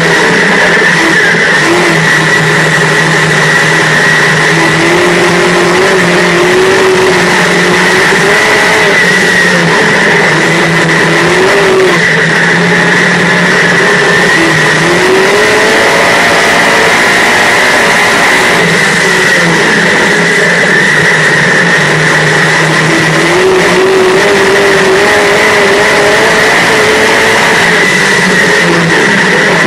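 Dirt modified race car's V8 engine at racing speed, heard from inside the car. Its pitch swells and drops again and again as the throttle is worked, with a steady high whine and rushing wind and road noise over it.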